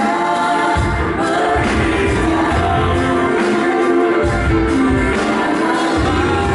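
A band playing with singers, the voices holding long notes over a pulsing bass line, in a medley of Indonesian songs.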